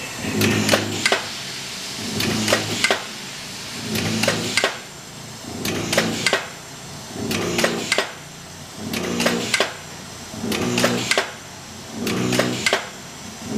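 125-ton Titan stamping press running continuously with its coil feed, cycling about every 1.7 seconds: each stroke a short low hum followed by two or three sharp metallic clicks and knocks.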